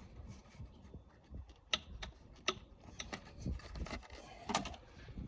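Hand work on engine-bay parts: scattered light clicks and knocks of parts and fittings being handled, a few sharper ones in the middle of the stretch.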